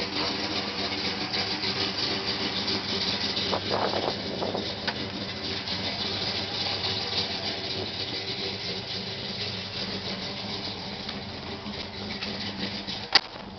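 A 1968 Dodge Coronet 500's 440 big-block V8 with dual four-barrel carburetors idling steadily, with one sharp click near the end.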